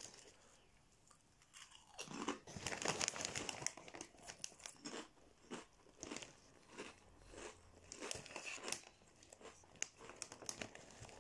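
Crunchchips crisps being chewed close to the microphone: a string of irregular crunches that starts about two seconds in.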